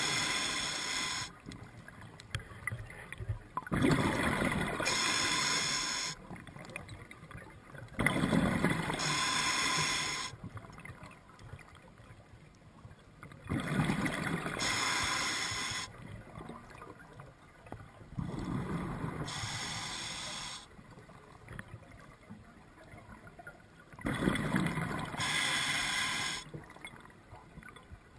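A scuba diver breathing underwater through a regulator: about six breaths, one every five seconds or so, each a burst of bubbling and hiss with quieter gaps between.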